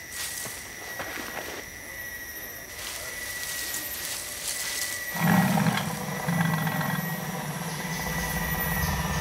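A few soft rustling steps in dry leaves over a thin steady high whine. About five seconds in, a deep rumble starts suddenly and keeps growing louder.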